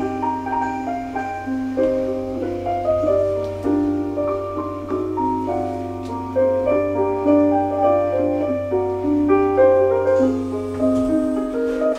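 Soft piano background music playing inside a moving lift, over the lift's steady low hum, which stops about a second before the end as the car comes to rest.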